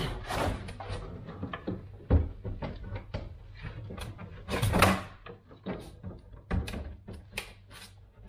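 Knocks, clunks and scraping as a Main Eco Compact combi boiler is lifted and hung onto its metal wall-bracket hooks. There is a heavy thud about two seconds in and a louder, longer clatter around the middle.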